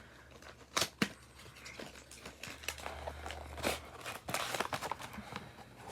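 Plastic packaging on a toy box being handled and opened by hand: soft crinkling and rustling broken by scattered sharp clicks and snaps.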